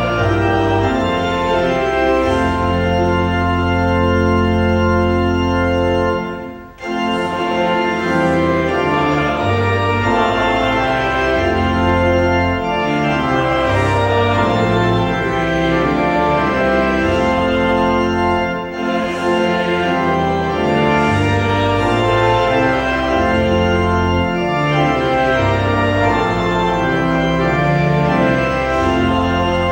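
Church organ playing slow, sustained chords, with a brief pause between phrases about six and a half seconds in.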